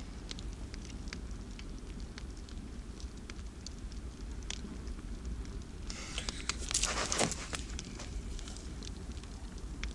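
Outdoor woodland ambience: a steady low rumble with scattered small crackles and ticks, and a louder rustle about six seconds in that lasts about a second and a half.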